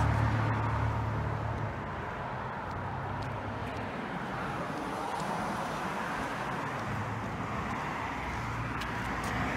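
Road traffic: a vehicle's engine rumbles close by at first and fades over the first couple of seconds, leaving a steady hum of passing traffic.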